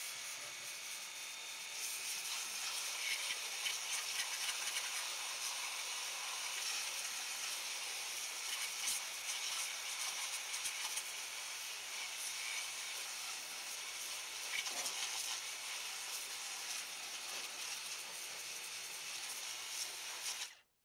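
WORX Hydroshot 40-volt cordless pressure washer spraying a narrow jet of water onto greasy metal machinery: a steady hiss of spray that stops suddenly near the end as the trigger is released.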